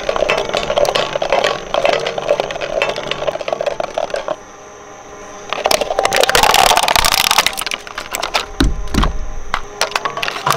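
Twin-shaft shredder's steel cutters turning with a hollow plastic pitcher rattling and knocking on the blades. About six seconds in, a loud burst of cracking and scraping as the cutters bite the plastic, then a low thump near nine seconds.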